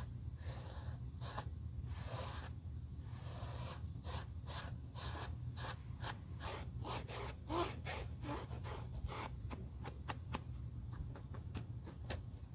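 Small foam sponge rubbed back and forth over the smooth leather upper of a slipper, a dry swishing in quick repeated strokes, about two to three a second at their busiest, over a steady low hum.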